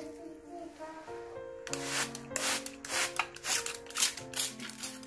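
Background music with a quick series of about seven rubbing strokes, like scrubbing or wiping, starting about two seconds in and stopping shortly before the end.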